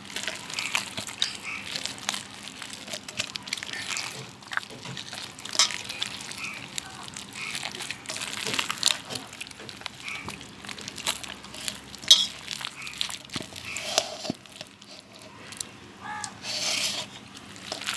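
Wet, irregular squelching and squishing as ripe palmyra palm fruit pulp is squeezed and kneaded by hand in a steel bowl, with small clicks and sloshes.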